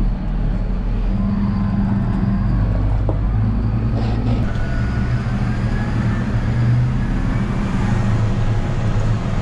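Tractor engine running steadily, heard from inside the cab as the tractor drives off.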